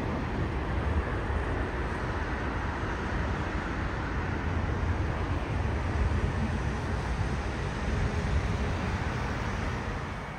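A twin-engine jet airliner landing and rolling out on the runway, heard across the airfield as a steady, even engine rumble.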